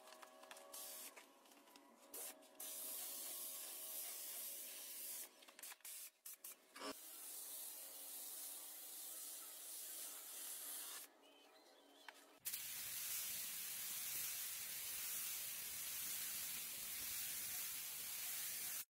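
Compressed-air paint spray gun hissing as it lays clear coat onto car body panels. The hiss starts and stops several times in the first half, then runs steadily for the last six seconds.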